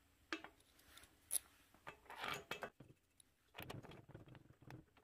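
Quiet handling noises of small metal parts: an aluminium adapter disc being set onto a scooter engine's intake flange and steel screws being fitted through it. There are a couple of sharp clicks in the first second and a half, then scraping and knocking twice more.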